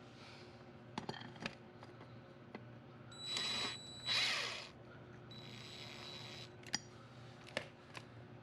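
Clicks and clinks of tools and metal parts being handled on a workbench, with two short loud hissing bursts near the middle and a quieter hiss after them.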